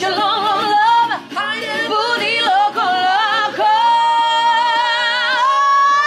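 A woman singing in a high, belting voice: quick ornamented runs, then from about four seconds in a long held high note with vibrato that steps up higher near the end.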